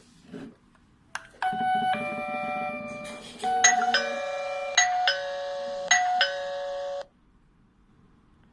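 Electronic doorbell chime playing a short melody of ringing notes. It starts about a second and a half in and cuts off sharply about seven seconds in.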